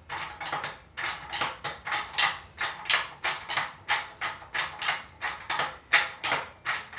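Jack handle being pumped at a steady pace, a short metallic clack on each stroke, about three a second, as the jack raises a transmission.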